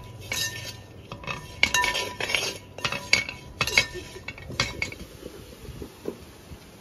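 A steel ladle clinks and scrapes against the side and bottom of a large metal pot, stirring onions and spice powders being sautéed for a masala. The clinks come irregularly, several in the first five seconds, then grow fainter near the end.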